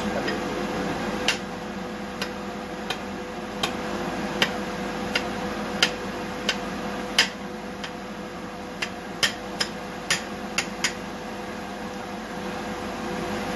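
Knife blade clicking against a ceramic plate as something is cut on it: about fifteen sharp, irregular clicks that stop about 11 seconds in, over a steady background hum.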